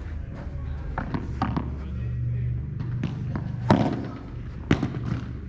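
Padel ball being struck by rackets and bouncing during a rally: a series of sharp knocks at uneven intervals, the loudest a little under four seconds in.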